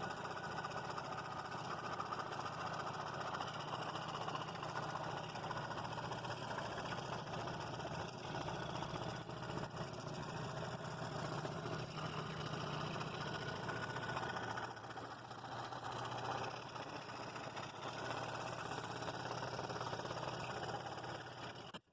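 Scroll saw running steadily, its No. 7 blade cutting through walnut, the sound easing off briefly about two-thirds of the way through.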